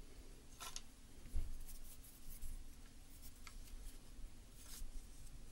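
Quiet handling of a flintlock pistol: faint scrapes and clicks as the ramrod is slid down the barrel, with a soft knock about a second and a half in.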